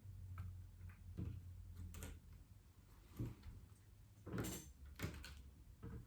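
Faint, scattered clicks and light scrapes of small tools and device parts being handled during a tablet repair, about half a dozen separate ones, the loudest about four and a half seconds in, over a low steady hum.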